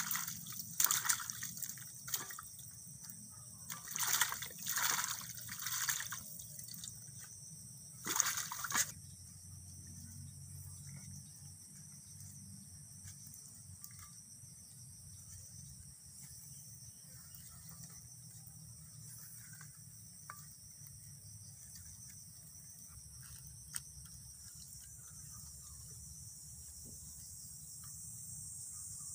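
Water splashing and trickling as napa cabbage leaves are washed by hand in a metal basin, in several bursts over the first nine seconds, then only small drips and handling sounds. A steady high insect chorus runs throughout.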